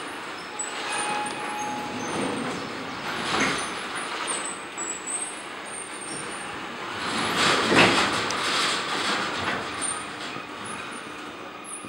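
Telescopic retractable bleacher rows moving along the floor: a mechanical rumble with short high squeaks, growing louder twice, about three seconds in and again near eight seconds.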